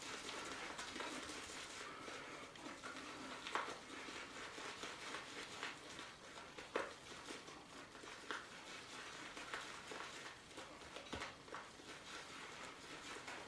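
Shaving brush being whipped around a bowl, working shave cream into a thick lather: faint, continuous wet swishing with small irregular clicks.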